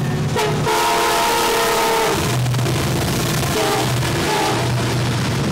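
A passing train's locomotive horn blowing loud and close: a short blast, then a longer blast ending about two seconds in. After that comes the steady drone of the locomotive engine and the continuous rumble of the train going by.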